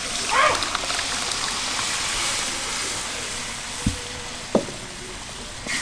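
Masoor dal poured into a hot pot of fried hilsa fish head and spices, sizzling with a steady hiss that swells just after the start and slowly dies down. There are a couple of short knocks about two-thirds of the way through.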